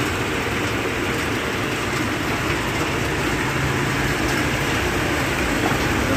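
Heavy rain falling on a flooded street, a steady, even rushing noise.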